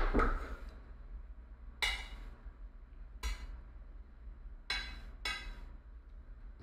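Metal tongs clinking against a ceramic serving platter as slices of pork tenderloin are placed on it: a louder knock at the start as the platter is set down on the wooden cutting board, then four short, sharp clinks a second or so apart.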